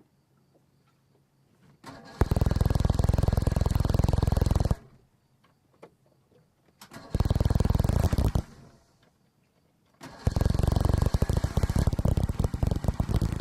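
Boat engine started three times: it fires and runs for about two and a half seconds, cuts out, runs again for about a second, then starts a third time near the end and keeps running.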